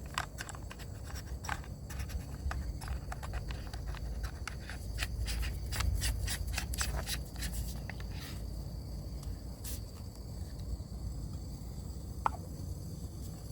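Irregular small clicks and scrapes of coffee gear being handled for about eight seconds, then quieter with a single click and a brief squeak. Under it runs a steady high insect trill and a low rumble.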